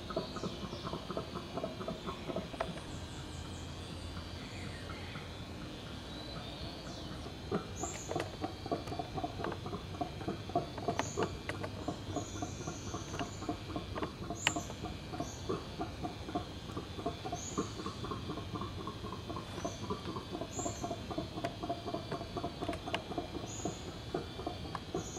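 Howler monkeys calling: a rapid, rhythmic run of deep grunts that breaks off about two seconds in and starts again about five seconds later. A bird's short high chirp repeats every few seconds over it.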